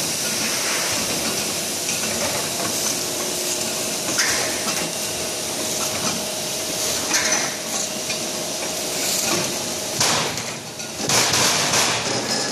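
Lift roller potato grader running: a steady clatter of turning steel rollers with potatoes rolling and knocking on them, over a faint steady hum. The noise dips briefly about ten seconds in, then comes back louder.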